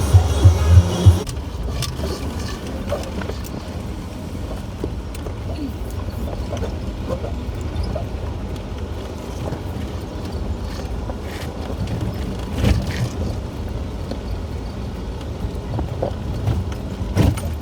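Music with a heavy beat cuts off about a second in. Then a Jeep drives over a rough dirt trail: a steady rumble with scattered knocks and rattles, and a few louder knocks near the end.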